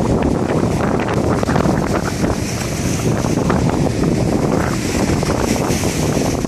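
Strong sea wind buffeting the microphone in a steady, loud rumble, with the wash of waves underneath.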